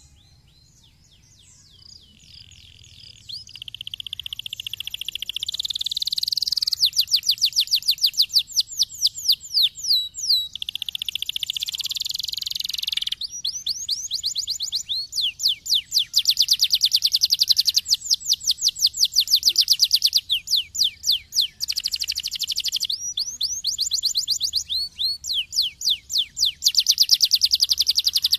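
Domestic canary singing a long song of fast trills. It starts faint and grows loud over the first several seconds, then carries on with only brief breaks between phrases.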